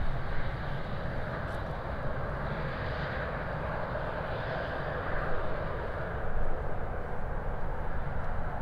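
Airbus A380's four jet engines running at low thrust as the airliner taxis and turns onto the runway: a steady jet rumble and hiss.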